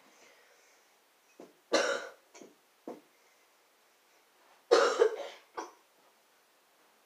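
A person coughing in two short fits about three seconds apart, each one loud cough followed by one or two smaller ones.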